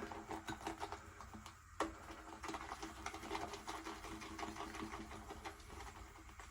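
Boar-bristle shaving brush whisked round a lathering bowl, the soap lather giving a faint, fast, crackling patter of fine clicks, with one sharper tap of the brush against the bowl about two seconds in.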